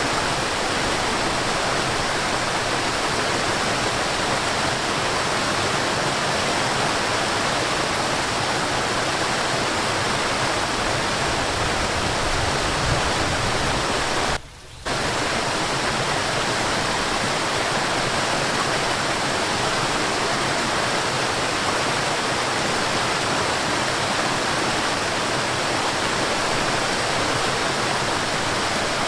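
Steady rushing of a forest waterfall, even and unbroken except for a brief half-second dip in level about halfway through.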